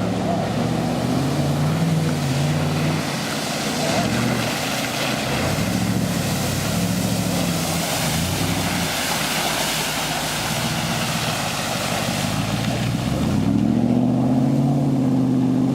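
Subaru Forester's flat-four engine running and revving, its pitch rising and falling with the throttle, over a steady hiss that swells in the middle. The revs climb near the end.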